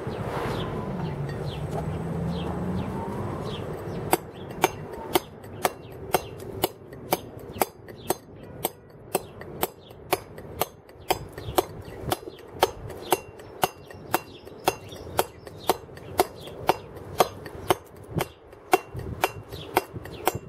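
Round wooden mallet driving a steel chisel into a stone block, a steady run of sharp blows about two a second that begins about four seconds in. The carver is roughing out the basic profile of a carving.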